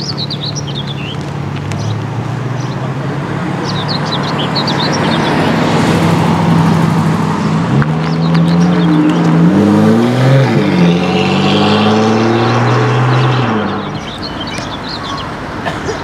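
Lotus Evora's 3.5-litre V6 running at low revs as the car rolls slowly past, growing louder, its pitch sliding as it goes by about two-thirds of the way in, then fading. Birds chirp now and then.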